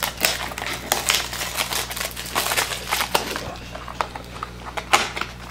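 Crinkling clear plastic wrap and rustling card stock as a trading-card pack is torn open and handled, with many small crackles and clicks.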